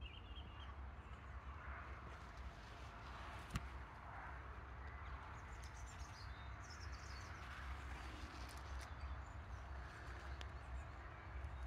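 Field ambience: a steady low rumble with faint, scattered birdsong, and one sharp click about three and a half seconds in.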